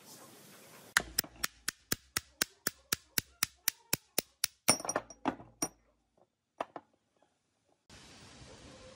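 Rapid, evenly spaced metal-on-metal taps, about five a second, followed by a few heavier knocks: a hammer striking a shaft to drive it out of its ball bearing, set over a hole in a steel plate.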